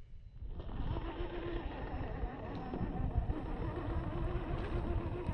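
Gmade GS02F Buffalo RC crawler's electric motor and gear drivetrain whining steadily as it drives, starting about half a second in.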